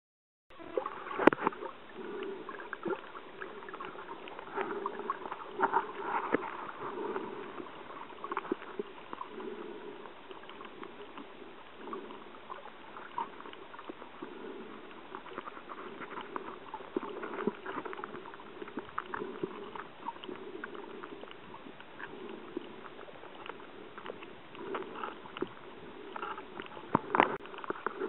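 Underwater camera audio: muffled water sloshing and swirling around the camera while snorkelling, with frequent sharp crackling clicks. It starts suddenly about half a second in, and the loudest clicks come near the start and near the end.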